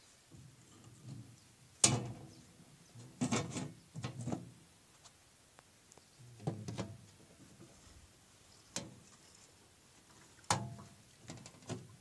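Manual roller wringer on a Tula-2 washing machine being worked as wet laundry is fed through it, giving irregular clunks and knocks, the sharpest about two seconds in and a cluster a second or so later.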